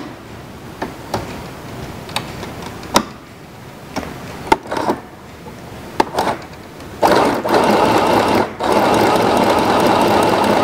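Mini portable 505 sewing machine: a few sharp clicks and knocks, then about seven seconds in it starts stitching a test seam with a steady rapid running sound. The stitching breaks off briefly about a second later, then runs on.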